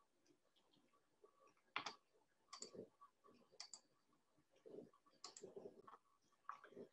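Faint, irregular clicks of a computer mouse and keyboard being worked to share a screen, about ten short clicks scattered over several seconds.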